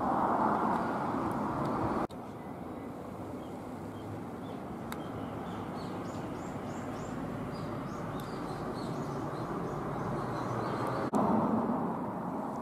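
Steady outdoor background noise with small birds chirping repeatedly for several seconds in the middle. The background changes abruptly twice, about two seconds in and again near the end.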